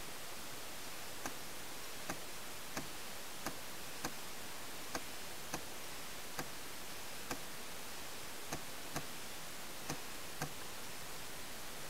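Paintball markers firing: about thirteen faint, sharp pops at an uneven pace, roughly half a second to a second apart, over a steady hiss.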